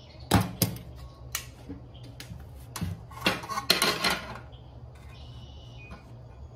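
Hand snips working thin aluminum sheet: a series of sharp, irregular metallic clicks and crunches, bunched most thickly just past the middle.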